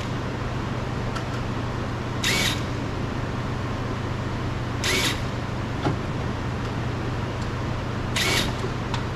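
Three short, sharp scraping clicks about a second apart and then two and a half seconds apart, as a flathead screwdriver is struck and worked into the crease of a car door handle's release to free it. A steady low hum runs underneath.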